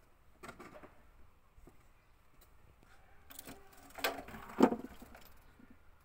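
Knocks and clunks of a washing machine's stainless steel drum and plastic outer tub knocking together as the drum is lifted out and set down. The loudest knocks come about four seconds in, the last with a brief metallic ring.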